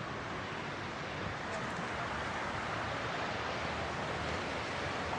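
Water of a small stream rushing steadily, growing a little louder after the first couple of seconds.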